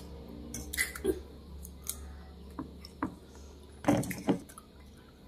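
Close-up eating sounds: scattered wet clicks and smacks as small dark berries are picked from a steel bowl and chewed. A couple of louder ones come about a second in and near four seconds.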